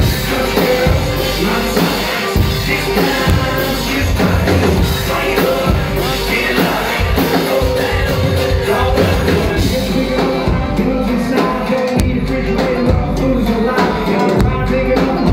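Live country-rap performance, loud: a rapper's vocals through the PA over a full band with drums.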